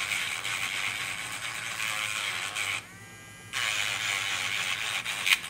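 Battery-powered electric nail file buzzing as its sanding bit buffs a fingernail, a gritty hiss over a low motor hum. The sanding breaks off briefly about three seconds in, then resumes and stops with a sharp click near the end.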